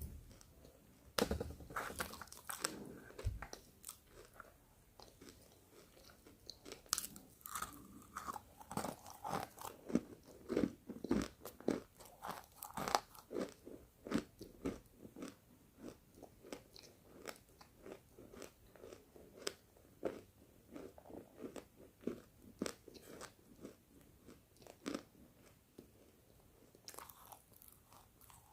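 Roasted pink chalk bitten and chewed in close-up: a sharp bite about a second in, then a long run of dry crunches about two a second, and another bite near the end.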